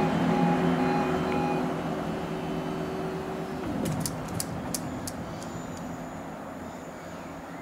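E2S level crossing alarm sounding its pulsing tone, which stops about a second and a half in as the half barriers rise after a train. A low hum fades and ends about three and a half seconds in, followed by a quick run of sharp clicks.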